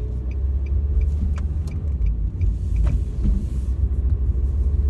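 Car cabin while driving: a steady low rumble of engine and road noise, with a few short clicks or rattles, the sharpest about a second and a half in and again near three seconds.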